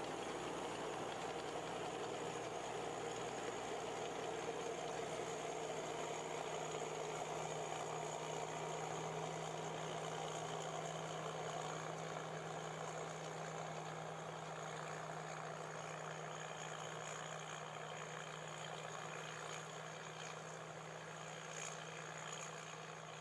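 Tracked combine harvester running steadily as it harvests, a continuous engine hum with a constant low tone under the noise of the machinery. It gradually grows quieter over the second half as the machine moves away.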